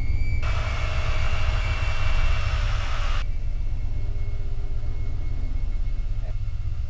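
Low, steady rumbling drone from a horror soundtrack, with a loud hiss that starts about half a second in and cuts off suddenly about three seconds in.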